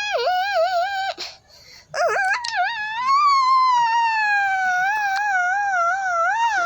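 A baby crying: a wail about a second long, a short pause, then a long wavering wail that runs on for about five seconds.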